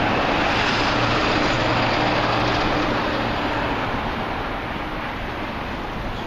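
Street traffic noise with a heavy vehicle's low engine hum, which fades away about halfway through as the vehicle moves off.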